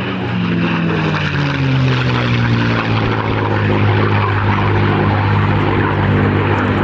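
P-51D Mustang's Packard Merlin V-12 engine and propeller running at display power during a flypast. The engine note drops in pitch over the first three seconds as the aircraft passes, then holds steady.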